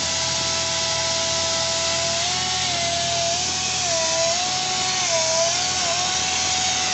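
Pneumatic DTH crawler drill running on compressed air: a loud, steady rush of air with a whine that wobbles up and down in pitch.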